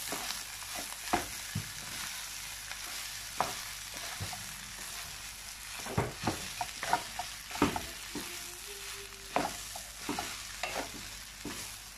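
Wooden spatula stirring and turning rice in a hot wok, over a steady high sizzle of frying, with irregular sharp knocks and scrapes of the spatula against the pan.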